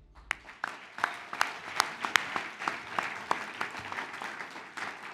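An audience applauding, with individual hand claps standing out. The clapping thins a little near the end.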